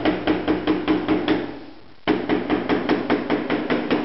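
Fast, rhythmic tapping of a mallet on a large floor tile, about six strikes a second, as a tiler beds the tile down into its mortar. The tapping pauses briefly about halfway through and then carries on.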